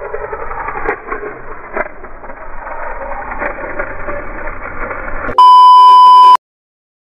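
A steady muffled hiss, then about five seconds in a loud steady test-pattern beep that lasts about a second and cuts off abruptly.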